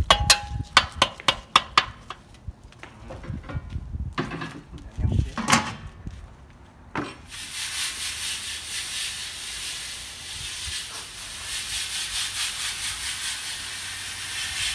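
A paddle stirs a basket of boiled crawfish with clattering knocks. About seven seconds in, a garden hose starts spraying the outside of the hot aluminum boil pot with a steady hiss of water, cooling the pot so the crawfish soak in the seasoned water.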